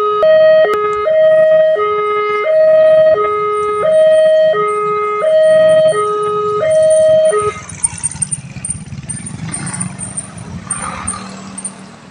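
Railway level-crossing warning alarm sounding a two-tone signal, switching between a high and a low tone about every 0.7 s. It cuts off suddenly about seven seconds in, leaving a low hum of traffic noise.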